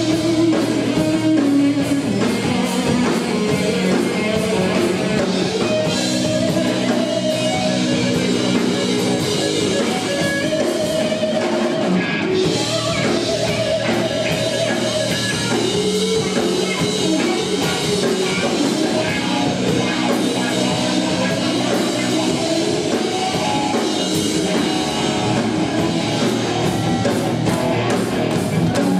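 Live rock band playing loudly: electric guitars over a drum kit, a continuous full-band passage.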